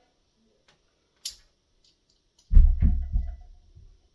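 Handling noise as a testing plug is fitted into the quick-fit coupler on a Crosman hand pump's hose: a sharp metallic click about a second in, then a cluster of heavy low thumps about two and a half seconds in.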